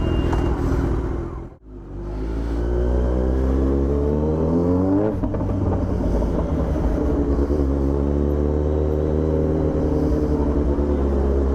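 Kawasaki Z900's inline-four engine through an Austin Racing aftermarket exhaust, under acceleration. The sound drops out briefly about a second and a half in, then the engine pitch climbs until about five seconds in, falls sharply at a gear change, and holds fairly steady after that.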